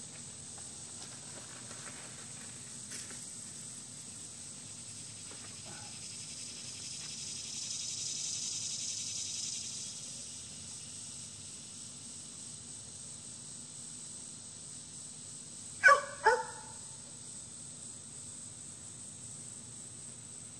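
A dog barks twice in quick succession about three-quarters of the way through, over a steady low hum and high hiss; a softer hiss swells and fades earlier on.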